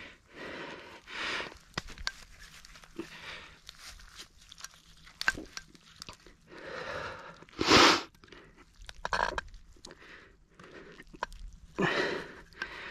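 Dry grass and straw crunching and rustling under bare hands as a steel trap is bedded into a muddy bank, in a series of bursts with small clicks between, the loudest about eight seconds in.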